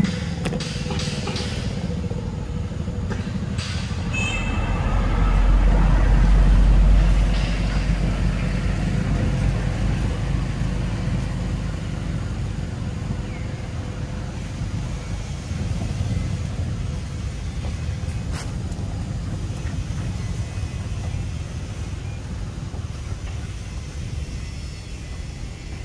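Low rumble of passing road traffic, likely motorbikes, swelling about five seconds in and fading over the next few seconds.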